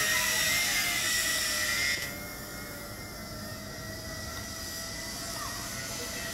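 Tarantula X6 quadcopter's motors and propellers whining steadily in flight, the pitch wavering slightly as the motor speeds change. About two seconds in, the sound turns suddenly quieter and loses its high hiss.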